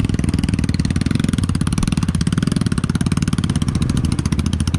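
Motorcycle engine running steadily with an even, rapid throbbing as it climbs a steep, rough gravel track. The engine is pulling weakly; the rider complains the bike has hardly any pickup on this climb.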